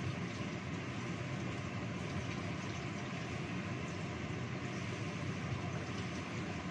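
Gas stove burner heating a covered wok of chicken simmering in water: a steady low rumbling hiss without a break.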